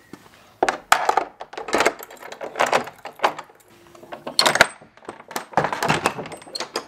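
Iron ring handle and latch of an old wooden church door being turned and worked: repeated metallic clanks and clicks in several bursts.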